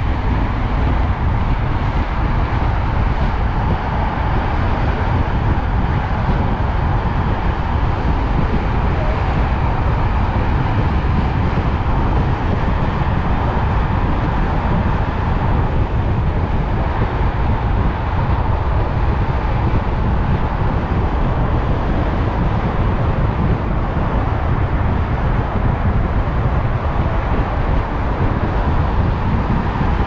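Steady wind rush and road noise from riding a Fly RZ electric motorcycle at speed, heaviest in a low rumble, with no engine sound behind it.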